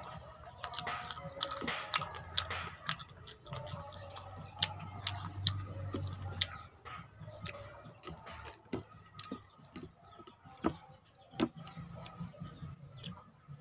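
Close-up eating of chicken feet adobo: chewing, sucking and lip smacks, heard as many irregular sharp wet clicks.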